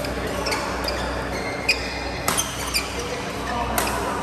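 Badminton doubles rally: rackets hitting the shuttlecock in a quick exchange of sharp hits, with brief squeaks from players' shoes on the court mat.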